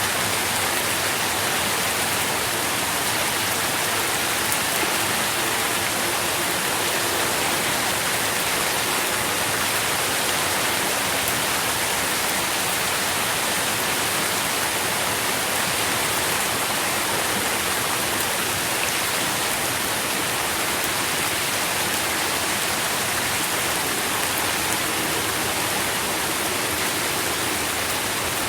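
Steady rain falling, a dense even hiss with no let-up.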